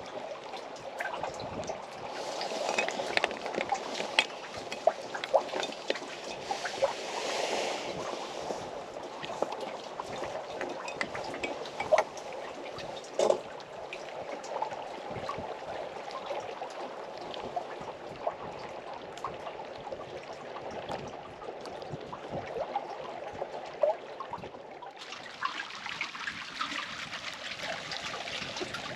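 Small waves lapping and trickling against the blind, with many light irregular splashes and drips; a brighter hiss joins near the end.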